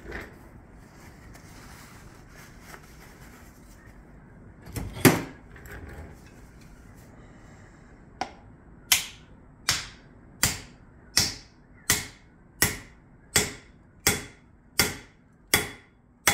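Steady hammer blows, about one and a half a second from eight seconds in, as the poll of a second axe drives a 4½-lb Tasmanian-pattern axe head down onto its new hickory handle until it is seated tight. A single loud knock comes about five seconds in.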